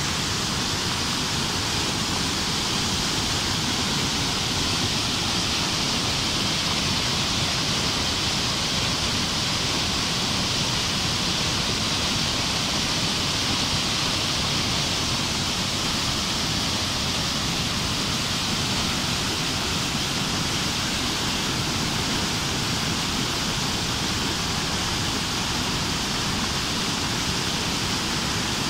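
River water pouring over a weir and churning through white-water rapids: a steady, unbroken rushing with no pauses.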